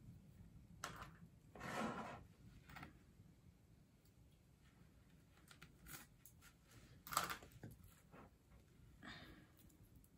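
Near silence with faint handling noise: scattered light clicks and rustles, a louder rustle about two seconds in and a sharp click about seven seconds in.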